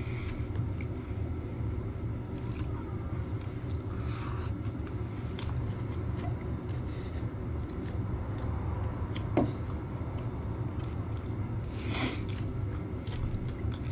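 Knife and fork cutting a burger on a plate, with scattered small clicks and scrapes, a sharper click about nine seconds in and a louder clatter about twelve seconds in, over a steady low hum.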